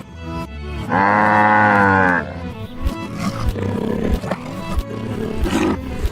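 Cartoon background music with a steady beat. About a second in comes one loud, drawn-out animal call lasting just over a second, its pitch rising and then falling.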